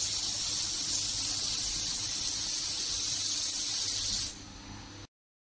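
Steady high-pitched hiss from a CNC fiber laser welder at work, its shielding gas blowing at the nozzle, cutting off abruptly about four seconds in.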